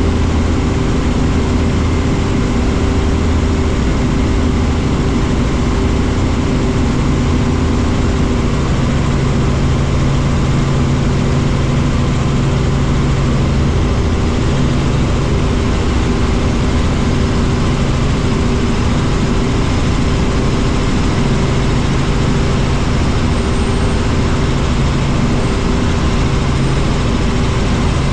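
Helicopter engine and rotor noise heard inside the cabin in level flight: a steady drone with a constant low hum.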